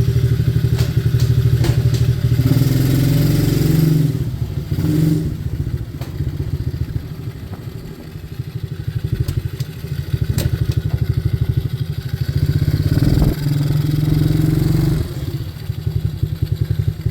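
Coolster 125cc single-cylinder four-stroke engine running, with the throttle opened up twice, about two seconds in and again near the end, and settling lower in between, as the new throttle cable is tried. A few sharp clicks and knocks sound over the engine.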